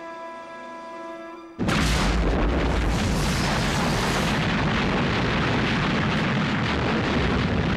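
A sustained music chord cuts off about a second and a half in and is replaced abruptly by a massed artillery barrage. Many guns fire at once in a continuous dense rumble of overlapping booms, the opening bombardment of some 650 British guns.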